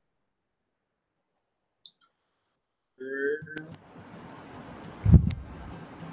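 Near silence, then from about three seconds in a few sharp computer-mouse clicks over faint room hiss, with one loud low thump just after five seconds.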